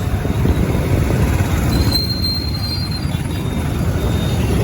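Steady low rumble of wind buffeting a helmet-mounted phone microphone, mixed with road and engine noise from a moving motorbike.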